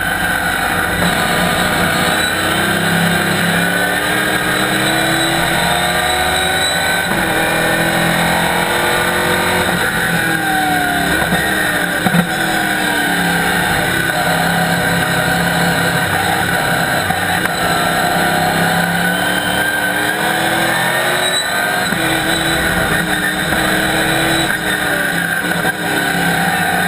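Chevrolet Camaro race car's ZZ4 small-block V8 heard from inside the cockpit under racing load. It revs up and drops back at each gear change, over and over, with one brief knock about twelve seconds in.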